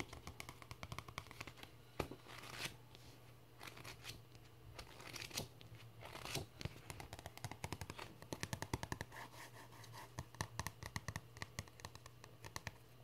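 Rapid light fingernail tapping and scratching on a book, with a few longer scratchy strokes about two and a half, five and six seconds in.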